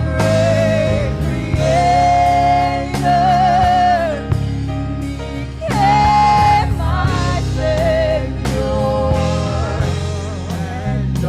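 Gospel worship song: a solo voice singing held, wavering notes over a band with bass, keyboard and a steady drum beat.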